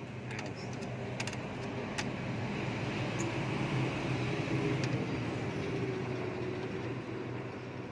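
A passing motor vehicle: a steady engine noise that swells to a peak about halfway through and then fades. A few sharp clicks come in the first two seconds.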